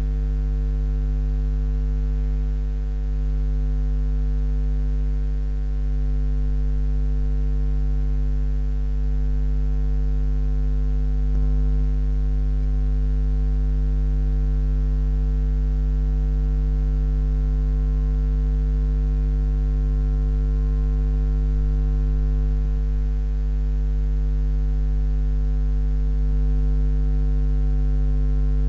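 Steady electrical mains hum on the recording: a low, unchanging drone with fainter higher tones stacked above it.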